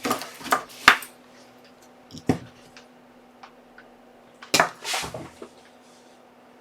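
Small hard parts and tools clicking and clacking as they are handled on a workbench: a few sharp knocks in the first second, one about two seconds in, and two more near five seconds, over a faint steady hum.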